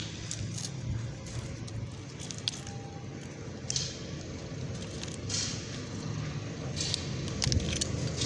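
Knife and side cutter working the outer jacket of an aerial fibre optic cable: scattered short scrapes and metallic clicks over a steady low rumble.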